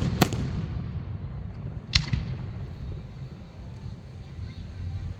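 Aerial fireworks shells bursting: two sharp bangs about a second and a half apart, each trailing off in an echo, over a steady low rumble.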